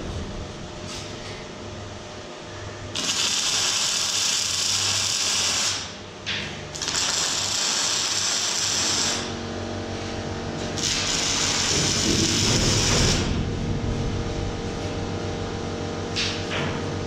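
Electric arc welding on a steel narrowboat hull: three short weld runs of about two and a half seconds each, a crackling hiss that starts and stops sharply, over a steady electrical hum.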